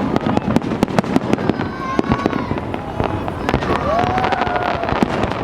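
Aerial fireworks exploding in quick, irregular succession: many sharp bangs and crackles overlapping one another.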